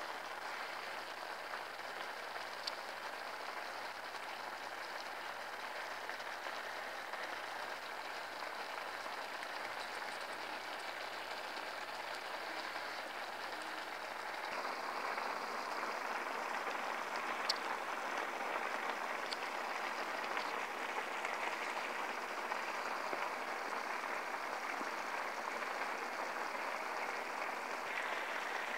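Seafood paella broth with clams and prawns simmering in a wide pan: a steady bubbling hiss with a few small pops, louder from about halfway through.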